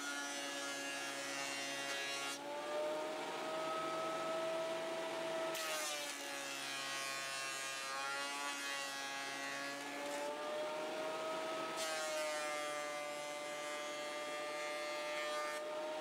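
A 2.5 HP 12-inch benchtop thickness planer runs with a steady motor whine while resawn pallet-wood boards are fed through, planing off the saw marks. Each time the cutterhead bites, a hissing cutting noise comes in and the whine drops a little in pitch. There are three passes: the first ends about two seconds in, the next runs from about five and a half to ten seconds, and the last from about twelve seconds to near the end.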